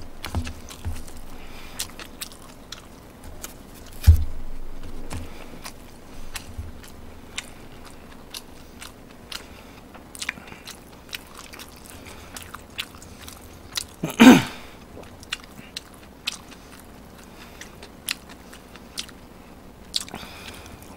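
A person chewing a mouthful of food close to the microphone: a stream of small wet clicks and smacks. There is a low thump about four seconds in, and a short louder throat sound about fourteen seconds in.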